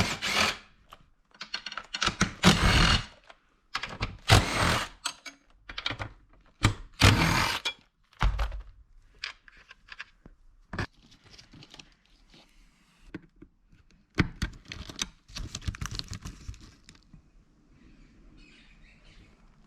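Hands-on work noises: a run of irregular knocks and clunks mixed with short rustling bursts, busiest in the first eight seconds and thinning to scattered clicks later.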